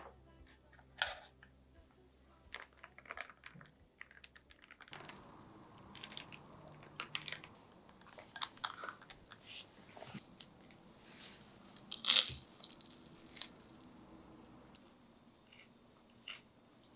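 Soft background music fades out about five seconds in, giving way to scattered light crunches and clicks of food and tableware being handled at the table, with one louder crunch about twelve seconds in.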